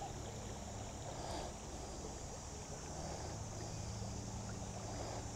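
Faint, steady ambience of a shallow river, with light wind on the microphone.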